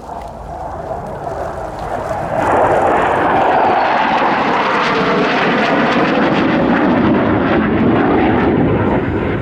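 RAF F-35B Lightning II's Pratt & Whitney F135 jet engine, a roar that swells over the first couple of seconds, then stays loud and steady.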